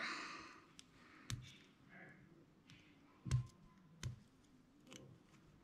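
Plastic LEGO bricks clicking as hands handle a small half-built model and work at pulling pieces apart: a few sharp, separate clicks, the loudest a little past three seconds in.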